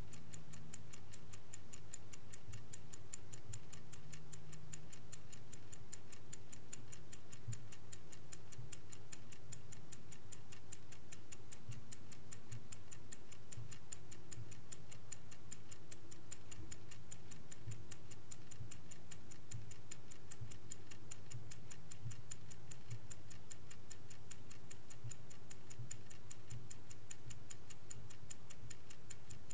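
Vintage Swiss-made Angelus clock ticking steadily, with quick, evenly spaced ticks.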